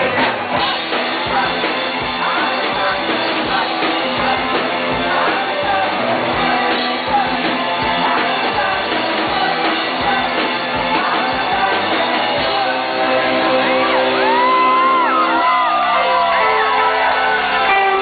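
Live rock band in full swing: a singer's vocals over electric guitar and drums, recorded in a large room. A steady drum beat drops out about two-thirds of the way through, leaving held guitar chords and sung, shouted vocal lines.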